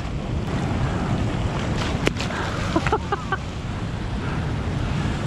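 Steady rush of turbulent spillway outflow with wind buffeting the microphone. A sharp click about two seconds in and a few short high squeaks around three seconds in.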